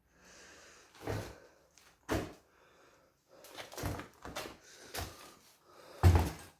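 A series of irregular knocks and thuds in a small room, roughly one a second, with the loudest thud near the end.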